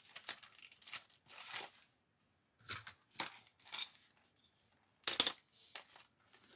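Clear cellophane wrapper on a pack of scrapbooking paper crinkling and rustling in the hands in short bursts, the loudest about five seconds in.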